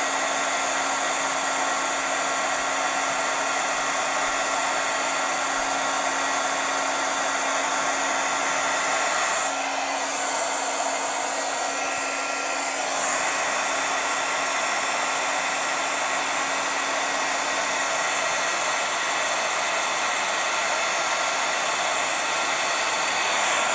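Embossing heat gun blowing steadily with a constant hum as it melts embossing powder on a card panel. About ten seconds in, the sound goes duller and a little quieter for about three seconds, then returns.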